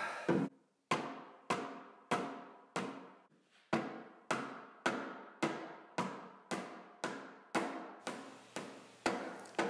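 Rubber mallet striking the end of a steel shaft, driving it through the bores of the lathe's cast-iron leg and motor drive. About fifteen even blows, a little under two a second, each a sharp knock with a short ring, with one longer pause about three seconds in.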